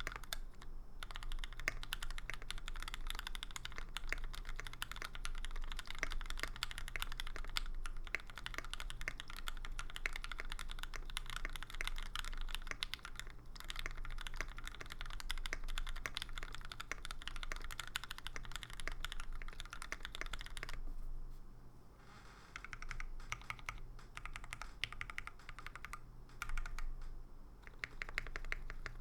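Typing on a mechanical keyboard with linear Gateron Yellow switches lubed with 205g0, mounted on an aluminium plate and fitted with JTK Tianwen keycaps: a fast, continuous stream of keystrokes that breaks into shorter runs with brief pauses about 21 seconds in.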